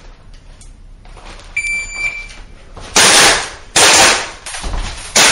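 An electronic shot-timer beep gives the start signal. About a second later three pistol shots follow at uneven intervals, each loud and echoing in an indoor range.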